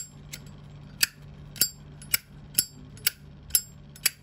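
Zippo lighter's hinged metal lid being flipped open and snapped shut repeatedly: about eight sharp metallic clicks with a bright ring, roughly two a second.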